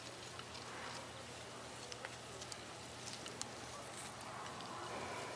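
Faint, scattered crackles of dry leaves and twigs under a cat rolling on its back in garden soil, over a quiet outdoor background.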